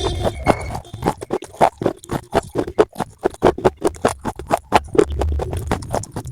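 Close-up crunching and chewing of brittle slate pieces: dense, irregular, crisp cracks, several a second, over a low steady hum.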